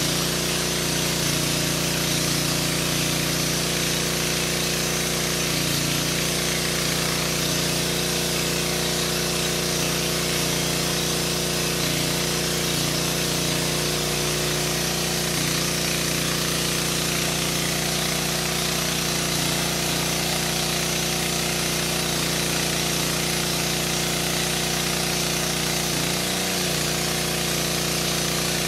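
Diesel generator running steadily at constant speed: an even engine hum with a hiss of mechanical noise over it.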